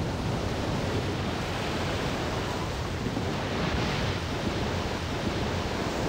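Steady wash of ocean surf and rushing seawater, a flood of water coming ashore.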